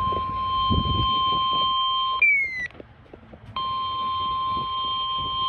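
Emergency Alert System alert tone: a steady, single-pitched electronic beep that sounds for about two seconds, cuts off, and comes back about a second and a half later, heralding a National Weather Service severe thunderstorm warning.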